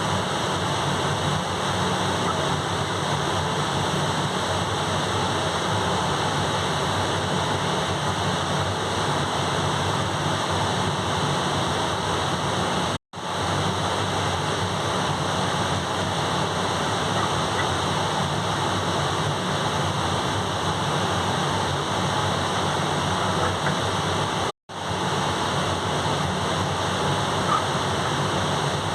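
Industrial gas-fired boilers running, a steady, even rushing noise of burners and fans with a few faint steady tones in it. The sound cuts out for an instant twice.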